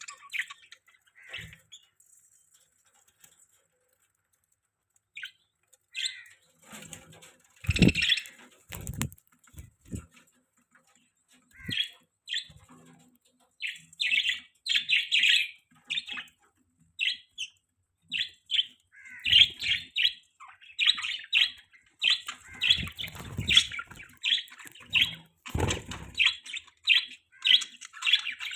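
Budgerigars chirping: scattered chirps with a short lull near the start, then a quick, steady run of repeated chirps from about halfway on. Several low thuds are mixed in.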